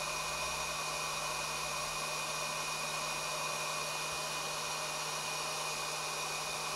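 JCD 8898 rework station's hot air gun fan blowing steadily, with a low hum and a thin high whine. It is in its cool-down run at the lowest setting, 100 degrees, after being docked in the station, just before the automatic shut-off.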